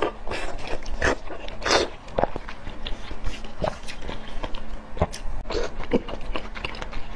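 Close-miked eating: a person biting and chewing soft, soup-soaked oden fish cakes, with many wet smacking clicks and short noisy mouth sounds.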